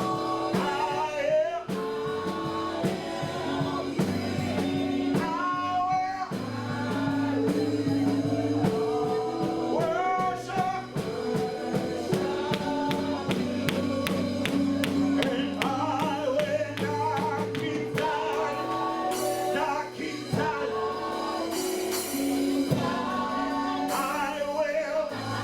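Live gospel worship music: singing over keyboard and band with a steady drum beat.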